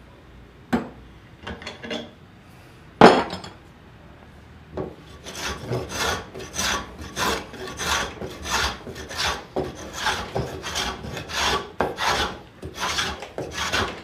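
A few knocks as the rafter is clamped in the bench vise, the loudest about three seconds in. From about five seconds, a hand plane shaves the cambará rafter in short, even strokes, about two a second, testing which way the grain runs.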